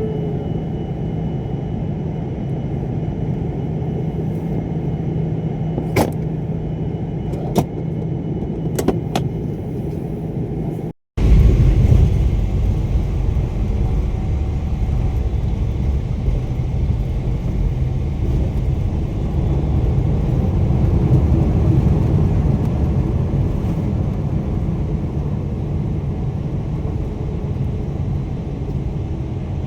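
Steady low rumble and hum from inside a moving vehicle, with a few sharp clicks. After an abrupt cut about eleven seconds in, the rumble comes back louder and deeper.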